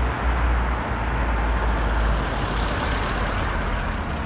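A Lada Samara sedan driving up on asphalt and slowing to a stop at the roadside: steady engine and tyre noise over a deep rumble, with a hiss swelling about two to three seconds in as it draws near.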